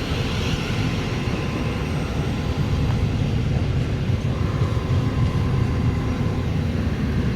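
A train running on the line close by: a steady, even low rumble that does not build up or die away.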